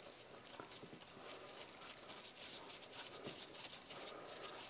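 Faint scratching and light ticks of nitrile-gloved fingers handling and seating the oil filter cover against the ATV's engine case.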